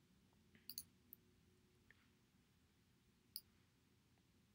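Near silence with a few faint clicks of a computer mouse: a quick pair under a second in, one just after, and one more past three seconds.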